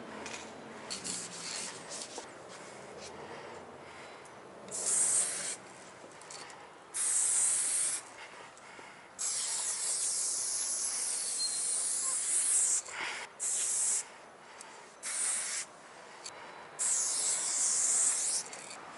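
Aerosol spray paint can hissing in bursts as a tag is sprayed onto a wall: several short sprays and one long spray of about three and a half seconds.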